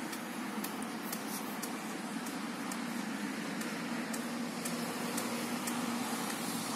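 Passing road traffic: a steady hiss and rumble of a car driving by, with a low engine hum swelling through the middle. A few faint sharp ticks sound over it.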